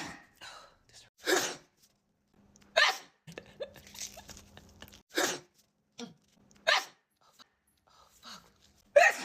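A woman sneezing over and over in a sneeze attack: five short, sharp sneezes roughly one and a half to two and a half seconds apart, with quieter breaths between them.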